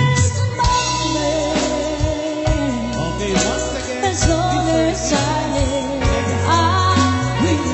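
Live band playing a slow pop ballad, with women singing over keyboard and a steady bass line.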